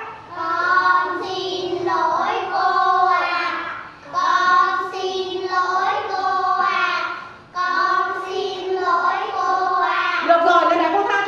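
A group of young children singing a song together in unison, in phrases with brief pauses between them.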